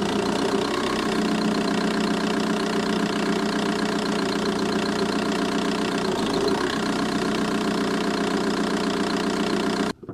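VW Bora's 1.9 TDI four-cylinder diesel engine idling steadily, with a rapid ticking from the engine bay. The sound cuts off suddenly near the end.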